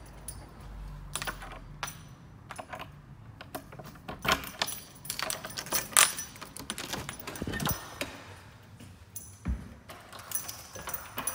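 A bunch of keys jangling, with metallic clicks and knocks, as a front door is unlocked and opened. There are irregular sharp clicks throughout, and the loudest knock comes about six seconds in.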